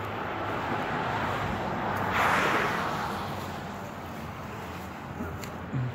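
A car driving past, its tyre and engine noise building, loudest about two seconds in, then fading away.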